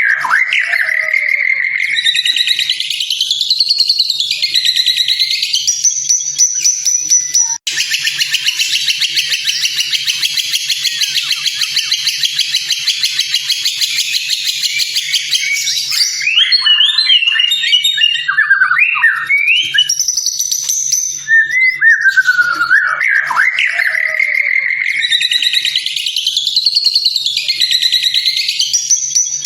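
White-rumped shama (murai batu) song: loud whistled phrases that slide up and down. About a quarter of the way in, a long dense buzzing trill cuts in abruptly and stops about eight seconds later. Quick choppy notes follow, then the sliding whistled phrases return.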